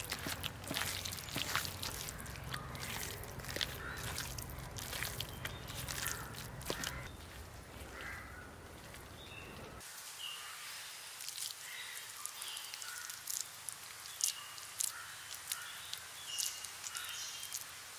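Wet clicking and squelching as spiced minced mutton is kneaded by hand, then, after an abrupt change about ten seconds in, outdoor ambience with birds calling in short repeated chirps and scattered clicks.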